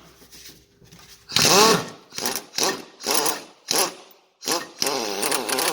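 Power wrench running in short bursts, speeding up and slowing, as it unscrews an old, worn frame-to-body mount bolt on a Nissan Patrol Y61.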